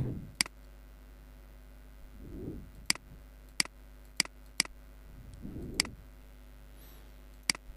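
Computer mouse buttons clicking, about seven single sharp clicks spaced unevenly over several seconds.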